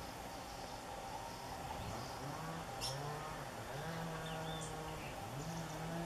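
Rural outdoor background with a few faint, short bird chirps and a low droning tone from about two seconds in that holds level pitches and steps between them.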